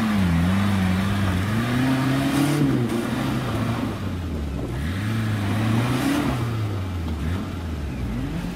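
A small 4x4 off-roader's engine revving up and down over and over as it works under load through a deep muddy rut, the revs climbing for a second or two, then falling away, about three times.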